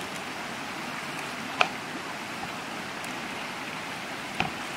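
Hands tearing apart a red bell pepper and pulling out its core over a plastic colander, with a sharp snap about one and a half seconds in and a smaller one near the end, over a steady rushing background noise.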